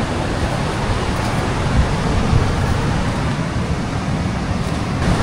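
Wind buffeting the microphone over a steady rush of surf: a continuous, even noise with a fluctuating low rumble.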